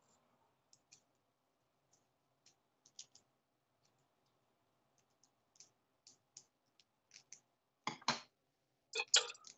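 Faint, irregular clicks a few times a second, with two louder knocks about eight and nine seconds in.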